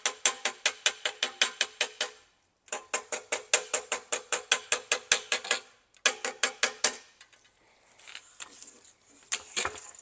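Rapid, even tapping of a rawhide mallet on a brass trombone slide tube seated on a steel dent rod, about seven blows a second in three runs with the brass ringing at each blow: the collapsed tube being tapped down to round it out. Near the end, lighter metallic clinks and rattles.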